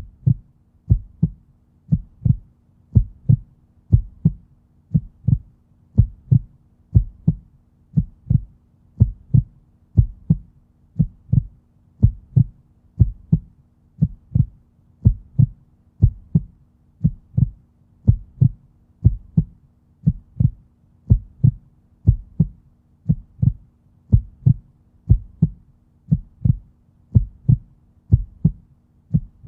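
Human heartbeat in a slow, steady lub-dub rhythm: a double low thump about once a second, with a faint steady hum underneath.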